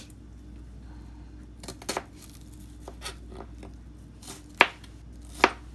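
Kitchen knife chopping on a cutting board in slow, irregular strokes, with two sharp, loud chops near the end.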